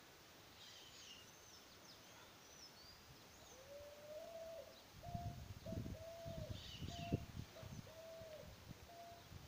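Small hand hoe thudding and chopping into the soil between chive plants in a few irregular strokes, loudest about five to eight seconds in, with one sharp knock. Birds chirp in the background, and from about four seconds in a bird gives a low, repeated hooting call with short breaks.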